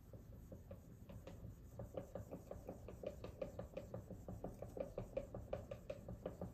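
Dry-erase marker scribbling back and forth on a whiteboard, a quick run of short squeaky strokes, about four or five a second, growing louder about two seconds in.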